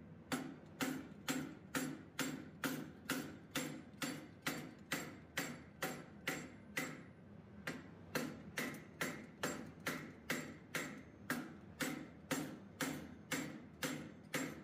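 Hand hammer striking a small metal turtle clamped in a vise, forging down its shell: steady blows about two a second, each ringing briefly, with a short pause a little before halfway.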